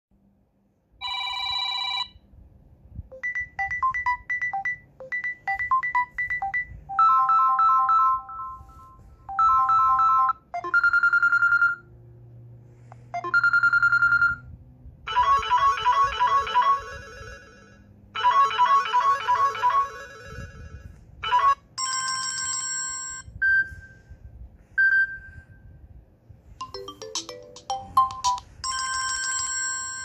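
Samsung Galaxy A03 ringtones previewed one after another through the phone's speaker: a dozen or so short electronic melodies and chimes, each cut off after one to three seconds as the next tone in the list is selected.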